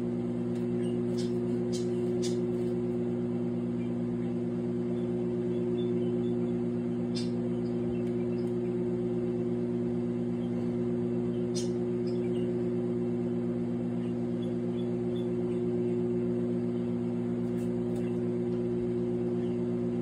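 Microwave oven running with a steady hum while heating a bowl of Vaseline, with a few faint ticks in the first dozen seconds.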